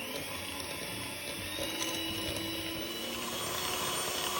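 Electric mixer beating softened butter with salt and icing sugar at medium speed: a steady motor whirring as the beaters churn the butter in the bowl, creaming it for cookie dough.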